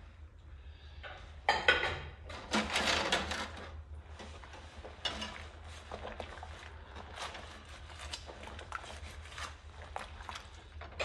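Dishes and cutlery being hand-washed in a soapy stainless-steel sink: irregular clinks and scrubbing as a fork is rubbed with a sponge under the suds, with a louder clatter about two to three seconds in.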